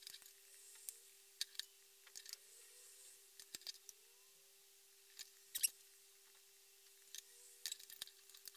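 Faint clicks and scrapes of a metal teaspoon against a glass jam jar and a metal muffin tray as jam is spooned into pastry cases, in small clusters with the loudest tap about five and a half seconds in, over a faint steady hum.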